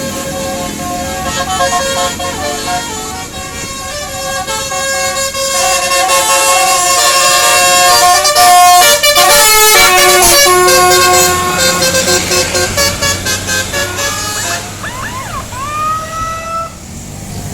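Indonesian bus 'telolet' horn, a multi-tone air horn playing a quick melody of stepped notes. It grows louder toward the middle and fades near the end, where a few short gliding tones follow.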